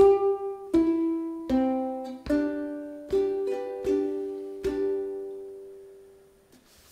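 Ukulele played slowly fingerstyle: a short phrase of single notes and chords a little under a second apart, the last chord left to ring and fade out.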